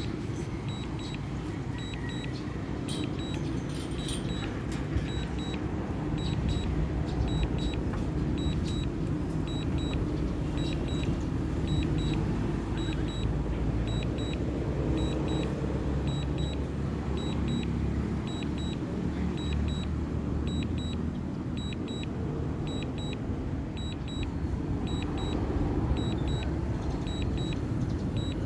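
Strong wind buffeting the microphone with a low rumble, over a steady train of short, high double beeps about once a second from the DJI Mini 2's remote controller, the alert it sounds while the drone is returning to home.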